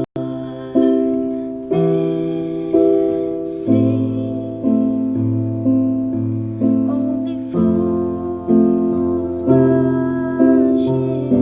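Background music: a gentle keyboard or piano tune with chords struck about once a second, each fading before the next, over a slow-moving bass line.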